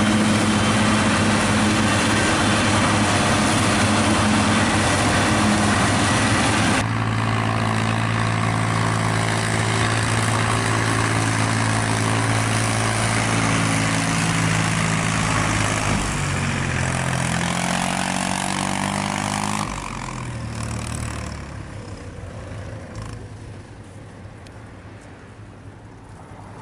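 Forage harvester and tractor engines running hard while chopped maize blows into a trailer. About a quarter of the way in, the sound changes abruptly to a Fendt Farmer 102 tractor's engine running steadily. Its pitch then climbs as it pulls away with a loaded maize trailer, and it fades off into the distance in the last few seconds.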